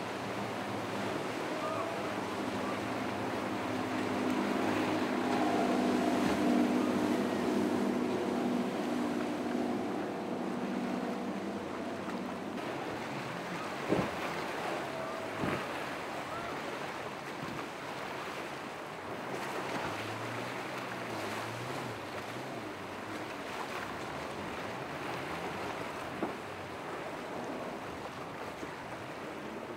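Motor yacht engines running as the boats push through choppy waves, over steady wash, splashing and wind on the microphone. The engine drone is loudest a few seconds in and fades away, and a few sharp thumps come near the middle.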